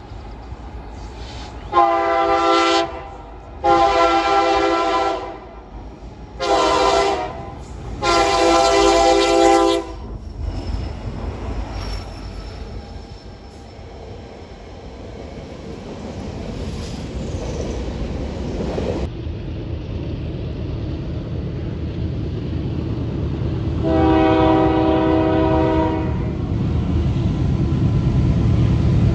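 Locomotive air horn sounding a chord of several tones: four blasts in the first ten seconds, the last the longest, and one more about 24 seconds in. Between and under them the low rumble of the train grows steadily louder.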